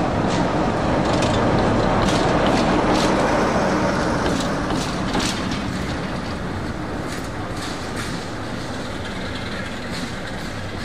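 A diesel train passing close by: loud, steady running noise with sharp clicks from the wheels, easing off in the second half.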